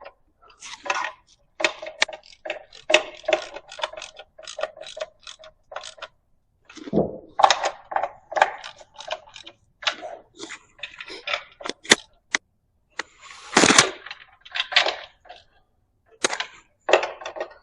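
Ratchet wrench clicking in quick runs of short metallic ticks as valve cover bolts are tightened down, with a heavier clunk of metal near the end.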